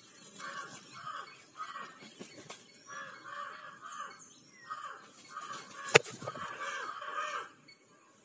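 A crow cawing in a run of about a dozen harsh calls, with one sharp tap about six seconds in as the loudest sound.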